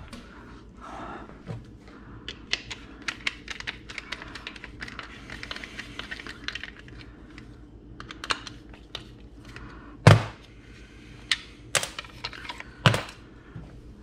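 Small clicks and taps of a screwdriver and hands working on a plastic electronic throttle pedal, with two louder knocks in the last few seconds, over a faint steady hum.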